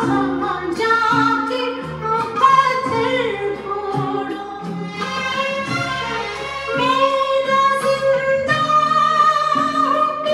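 A Hindi film song, a woman singing a melody over a full instrumental backing, played from a vinyl LP on a Pioneer PL-400 turntable through hi-fi loudspeakers.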